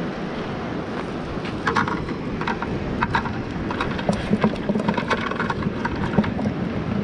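Steady wind buffeting the microphone over surf, with scattered clicks and rustling as a cast net is gathered up in hand.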